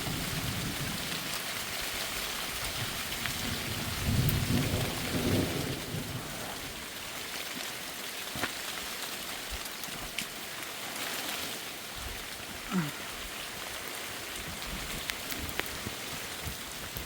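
Heavy rain falling steadily, with a low rumble of thunder swelling about four seconds in and fading over the next two seconds.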